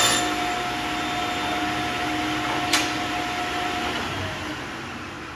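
Sliding table saw whirring just after a cut, its sound dying away steadily as the blade coasts down, with one sharp click a little past halfway.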